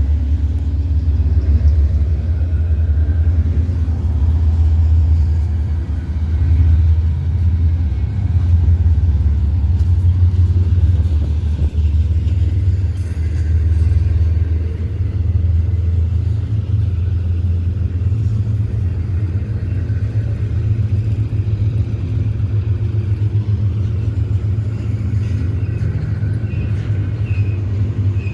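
Union Pacific diesel locomotive running with a steady, loud low rumble.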